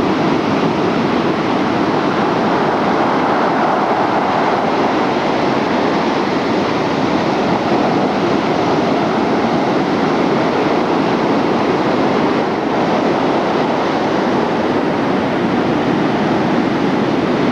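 Breaking ocean surf: a steady, unbroken rush of waves and whitewater.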